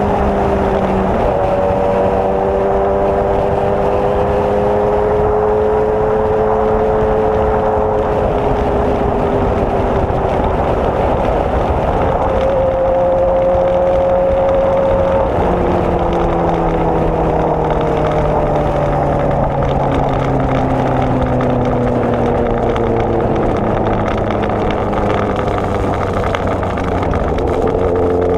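Kawasaki Z800's inline-four engine running under way, with wind noise. The pitch dips suddenly about a second in and holds fairly steady for a while. It rises briefly around the middle, then falls slowly through the second half as the bike slows.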